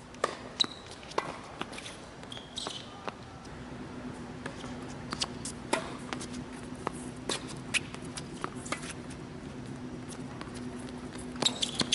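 Tennis rally on a hard court: irregular sharp pops of racket strings hitting the ball and the ball bouncing, mixed with players' footsteps, over a low steady hum.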